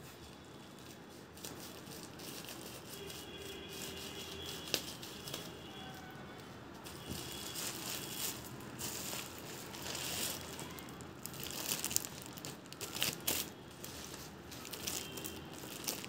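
Plastic packaging crinkling and rustling as a polythene mailer bag and the cable's clear plastic wrap are handled and pulled open, with a few sharp crackles, the loudest in the second half.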